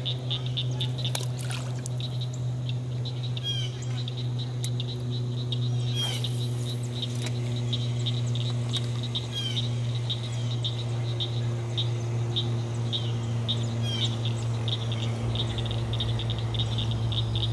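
Frogs calling: a rapid, high pulsing trill that keeps going on and off, with short chirping calls every few seconds, over a steady low hum.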